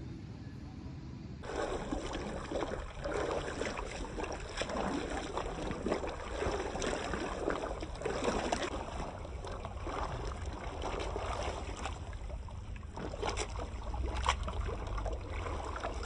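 Hand-pushed rotary paddy weeder churning through flooded rice-field mud, its toothed rollers splashing and sloshing water in irregular surges with each push. A steady hiss gives way to the splashing about a second and a half in.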